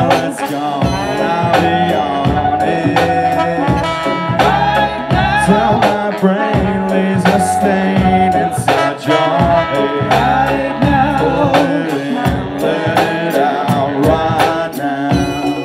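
Live hip hop/groove band playing an instrumental passage, with trombone and saxophone lines over a steady drum beat and bass.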